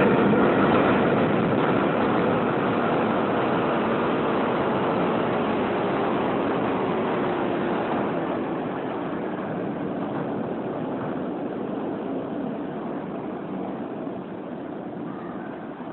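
Tokyu electric train's running noise, with a faint motor whine in the first few seconds, growing steadily quieter as the train slows or draws away.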